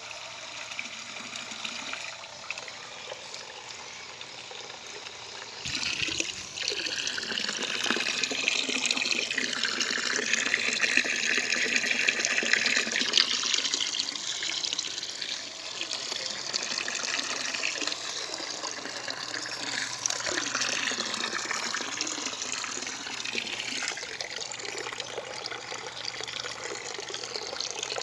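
Water running and splashing steadily in a tank's overflow and return plumbing, louder from about six seconds in.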